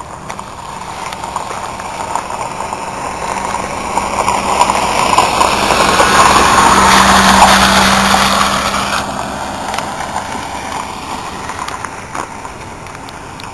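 A motor vehicle passing through floodwater: engine hum and the rushing wash of water and tyres grow louder to a peak about halfway through, then fade away.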